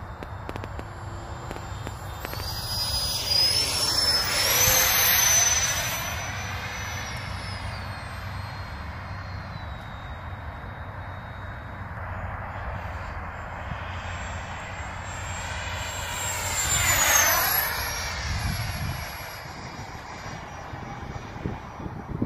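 Freewing F-22 radio-controlled electric ducted-fan jet making two fast passes. Each time, a high fan whine swells as it nears and drops in pitch as it goes by: once about three to six seconds in, and again around sixteen to eighteen seconds.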